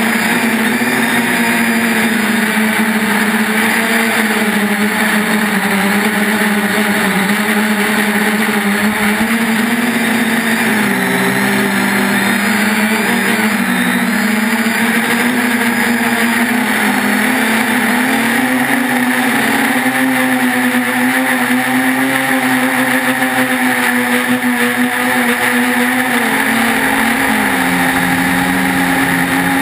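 3DR Iris+ quadcopter's electric motors and propellers whining steadily in flight, the pitch wavering up and down as the throttle changes.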